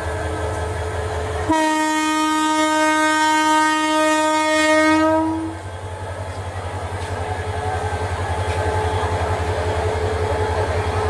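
Bangladesh Railway diesel locomotive sounding one steady horn blast of about four seconds, starting about a second and a half in, over its running engine. After the horn stops, the engine's low pulsing continues as the locomotive rolls slowly past.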